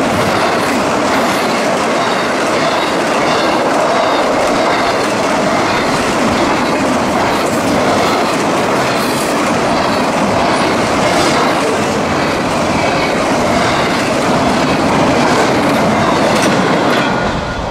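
CSX I-009 intermodal freight train rolling past at speed: a loud, steady rumble and rush of steel wheels on rail, with faint clicks as the wheels cross rail joints. The noise thins out near the end.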